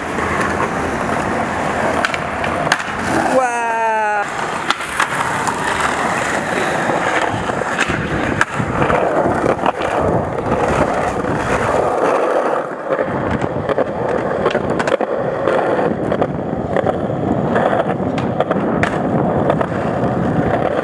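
Skateboard wheels rolling over concrete pavement, a steady rumble with scattered sharp clacks of the board. A short falling squeak about four seconds in.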